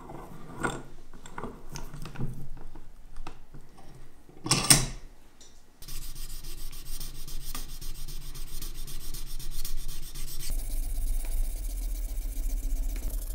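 Light knocks and clicks of a metal watch case being pressed onto a holder in a vise, with one louder scrape near the middle; then, about six seconds in, sandpaper on a block rubbing back and forth over the watch case in a steady rasping to refinish it.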